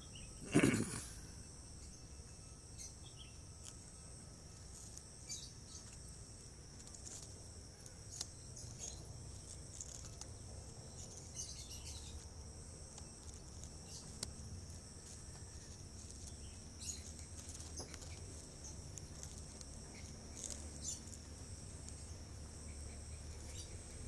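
Steady high-pitched drone of insects, with one brief loud bump about half a second in and scattered faint clicks.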